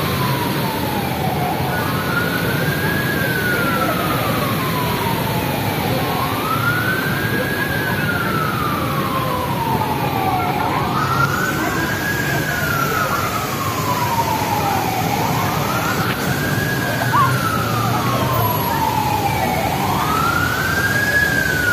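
Emergency vehicle siren wailing in a slow rise-and-fall, each cycle climbing quickly then sliding down, about every four and a half seconds, over steady city street noise.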